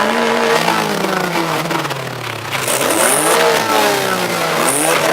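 Car engine being revved: the pitch climbs and sinks slowly, climbs again about three seconds in and falls back, then starts to climb once more near the end.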